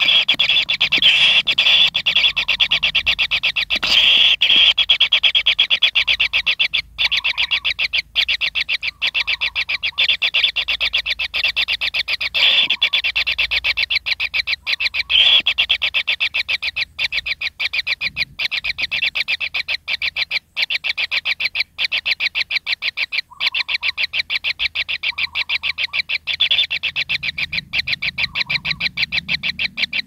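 Kingfisher nestlings in their burrow making a continuous, rapid pulsed churring trill, many pulses a second, breaking off briefly now and then.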